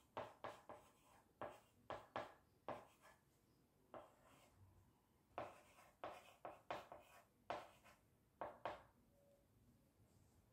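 Chalk writing on a small blackboard: short, quiet, scratchy strokes in quick runs, with a brief lull near the middle.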